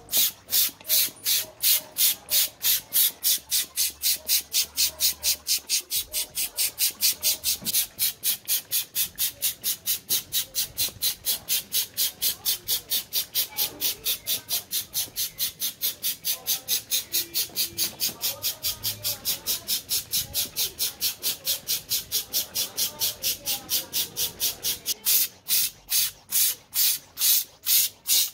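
Hand-pumped paint sprayer worked in quick, even strokes, each stroke a short hiss of spray, about three to four a second, as it mists thinned primer.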